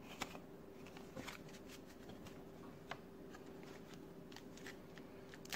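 Faint handling of 1990 Leaf baseball cards: a few small clicks and slides of the cardboard cards being sorted and set down, over a faint steady hum.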